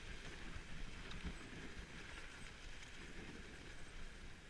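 A dog sled running along a packed snow trail behind a team of sled dogs: the steady noise of the sled and its runners over the snow, with the dogs' footfalls.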